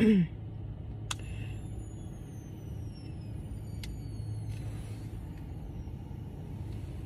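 Steady low rumble of a car's engine heard from inside the cabin. About a second in, a sharp click, then a faint high-pitched whine that slowly falls in pitch over about four seconds, with another click partway through.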